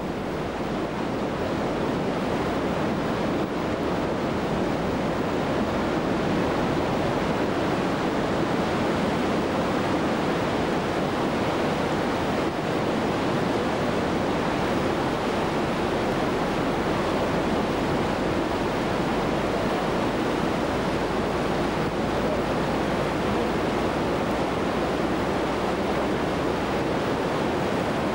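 Whitewater river rapids rushing, a steady, unbroken noise of churning water.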